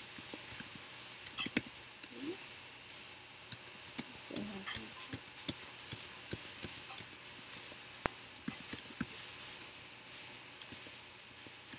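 Computer keyboard typing: scattered quick key clicks, irregular, with a couple of short faint rising vocal sounds about two and four and a half seconds in.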